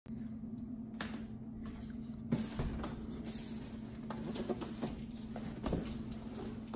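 Hands gripping and shifting a large cardboard box on a wooden floor: scattered light scratches, taps and scuffs of cardboard, busier from a couple of seconds in. A steady low hum runs underneath.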